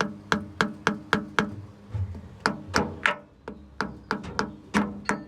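Hammer tapping on metal: about fifteen quick, sharp strikes in short runs, each leaving a brief ring.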